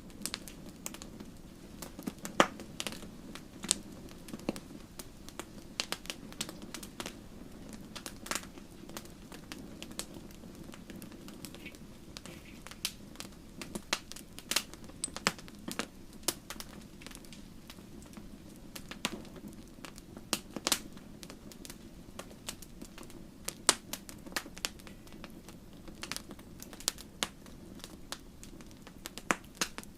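Wood fire in a fireplace crackling: irregular sharp pops and snaps, some much louder than others, over a steady low rumble of the flames.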